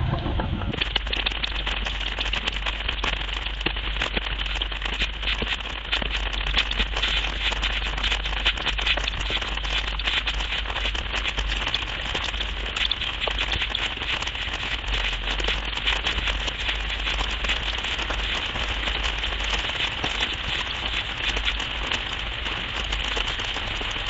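Steady rain falling on and around the camera, a dense crackling patter over a low steady rumble.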